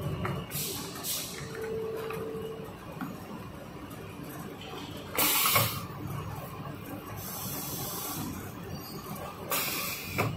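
SOC6028 curved-surface heat transfer printing machine working through a print cycle on a plastic bucket: a steady mechanical background broken by several short, sharp hisses, the loudest about five seconds in and just before the end. The hisses are typical of the machine's pneumatic valves venting air as the press moves.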